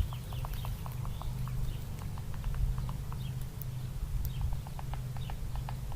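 Woodpecker pecking at wood: a steady run of sharp, uneven taps, several a second.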